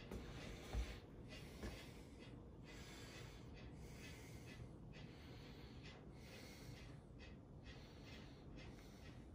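Near silence: faint room tone with soft breathing sounds, and one light thump just under a second in.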